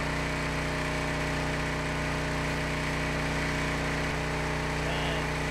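Harbor Freight 212 cc gasoline semi-trash water pump running steadily at a constant speed, under a steady hiss of water spraying from a fire hose nozzle.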